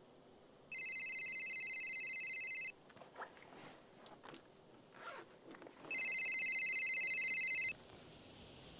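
Mobile phone ringing: two rings of a warbling electronic trill, each about two seconds long, the second a little louder. Between the rings, soft rustles and clicks of a hand rummaging in a backpack.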